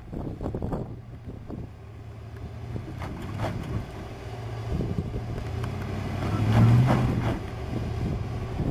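Ford Expedition's V8 engine pulling under load as the truck crawls up a rocky ledge, its steady low note swelling louder about six and a half seconds in. Scattered crackles of tires on rock and gravel ride over it.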